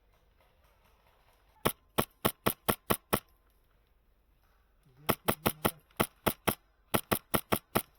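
HPA-powered airsoft M4 rifle (Wolverine MTW) firing quick semi-automatic shots, about four to five a second, in three strings: about seven shots, then about eight, then about five.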